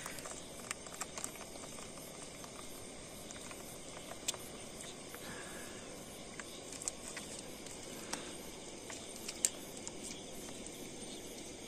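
Faint steady chorus of insects, with a handful of small clicks and rustles as a fish is picked out of a fine-mesh gill net by hand.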